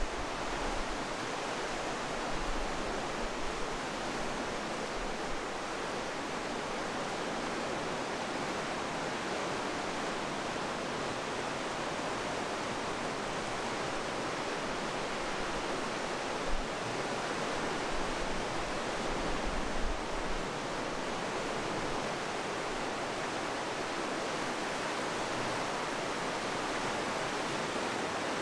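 Steady rushing of a mountain river through a rock gorge, an even roar of water with no breaks. A few low bumps sit on top of it, one at the start and a cluster about 17 to 20 seconds in.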